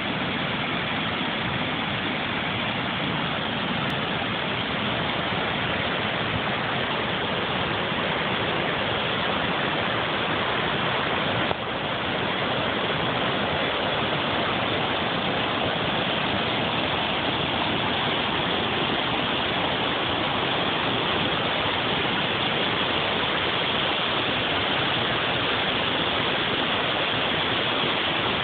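Creek in storm flood: fast, churning brown floodwater rushing through the channel and over a drop, a steady, unbroken rush of water.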